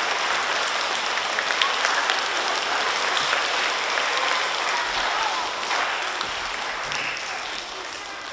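Audience of elementary schoolchildren applauding, a dense patter of clapping that gradually fades over the last few seconds.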